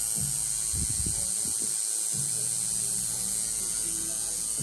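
Tattoo machine buzzing with a steady electric hum, breaking off briefly about two seconds in.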